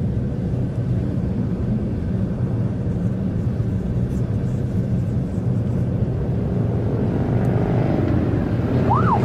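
Steady low road and engine drone inside a moving car's cabin. Just before the end, a short rising-and-falling wail sweeps up and down once and starts to rise again, like a police siren starting up.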